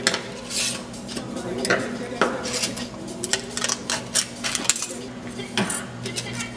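Scissors snipping thin aluminum sheet cut from a drink can, the metal crinkling, with small tools and pieces clattering on a wooden tabletop: a run of sharp clicks and rattles.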